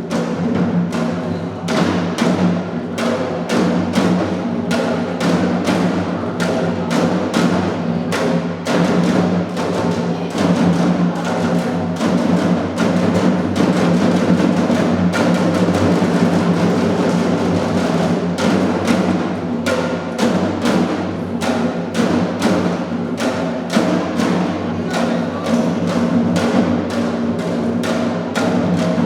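Percussion-led music: drums struck in a quick, steady rhythm over sustained low tones.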